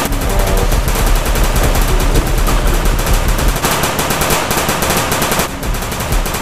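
Automatic rifle fire: one long, unbroken burst of rapid shots.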